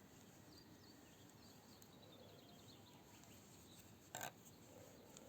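Very quiet outdoor ambience with faint bird chirps and a short rapid twitter, and one brief sharp click about four seconds in.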